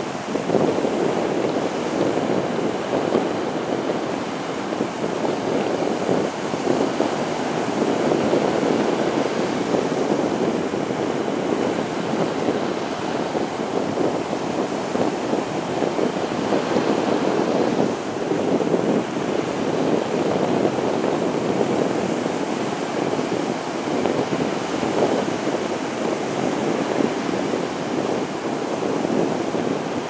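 Small waves breaking and washing up on a sandy beach: a continuous surf rush that swells and eases every few seconds.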